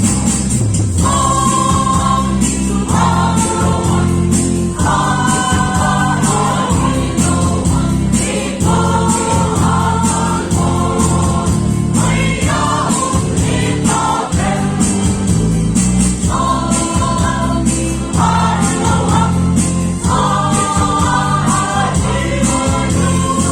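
Gospel song: voices singing in phrases of a few seconds over a steady, bass-heavy instrumental backing.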